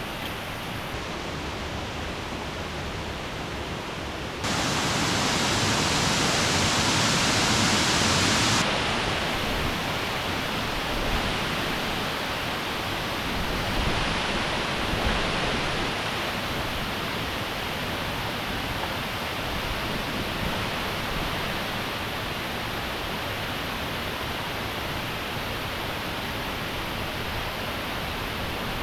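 Steady rushing of a waterfall. It gets abruptly louder and brighter about four and a half seconds in, then falls back about four seconds later.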